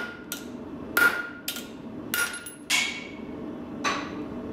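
Hand hammer striking a hardened, blue-tempered steel bar held in tongs over the anvil: about five sharp, ringing blows roughly a second apart, the first few each followed by a lighter tap. The blows are meant to snap the bar as a toughness test, and the blue-tempered steel resists breaking.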